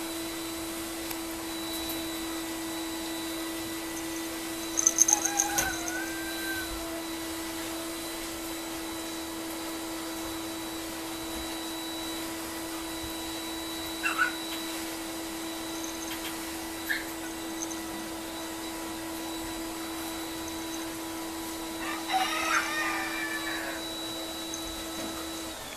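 A steady machine hum held on one pitch, stopping at the very end, with a few brief high-pitched squeaks over it.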